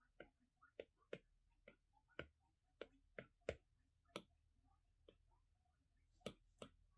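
Stylus tip tapping on an iPad's glass screen while painting and picking a colour: a dozen or so faint, irregularly spaced taps.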